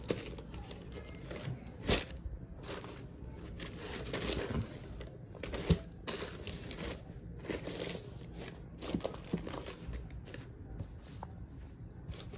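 Tissue paper crinkling and a cloth shoe dust bag rustling as hands handle the packaging in a shoe box: irregular rustles with a few sharper crackles.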